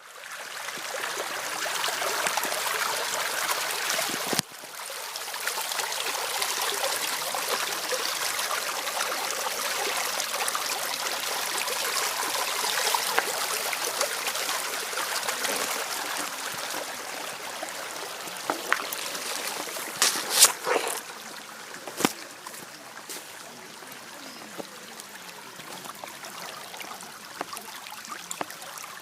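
Running water of a garden fountain or channel trickling and splashing steadily, a little quieter in the last third, with a few sharp clicks about two-thirds of the way through.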